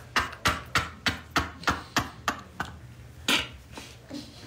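A man's fit of laughter: a quick run of sharp, short bursts, about three a second, then a louder breathy one about three seconds in.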